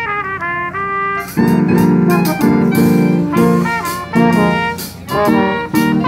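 Youth jazz band of trombones and saxophones playing live. A lighter melodic line opens, and about a second and a half in the full horn section comes in with loud, punchy chords, repeated in short stabs.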